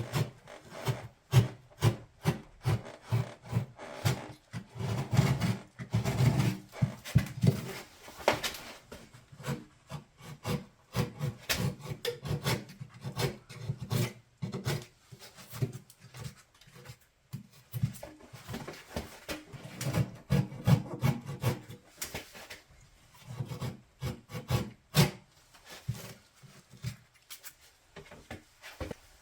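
Repeated short scraping strokes of a hand tool shaving the cut edge of drywall around the hole, bevelling it so the joint compound can sit in it. The strokes come in irregular runs with brief pauses.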